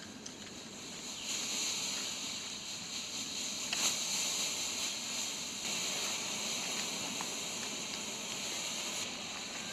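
Colour smoke grenades hissing steadily as they burn and pour out smoke, the high hiss swelling and easing every few seconds, with a single faint click about four seconds in.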